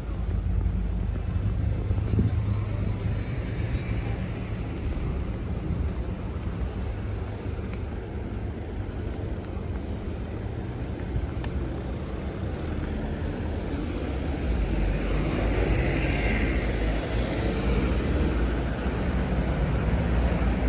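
Street traffic: the steady low rumble of passing vehicles, growing louder over the last several seconds.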